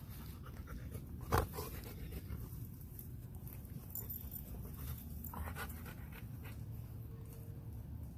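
Golden retriever panting while it rolls on its back in the grass. There is steady rustling underneath and one sharp knock about a second and a half in.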